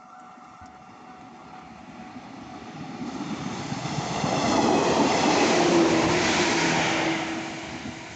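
JR 115 series electric train passing over a level crossing: its running noise builds up, peaks about halfway through and then fades as it goes by.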